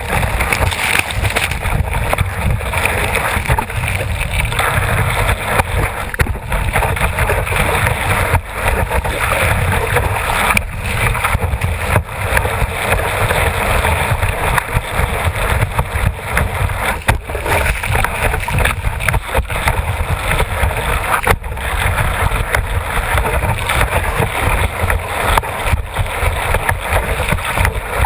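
Water rushing and splashing past a kiteboard as it planes over chop, with wind buffeting the board-mounted camera's microphone: a continuous loud rush of noise.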